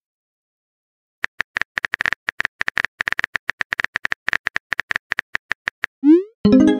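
Phone keyboard typing sound effect: a rapid, irregular run of short clicks as a text message is typed out. Near the end comes a short rising swoosh, then a loud sustained musical tone starts.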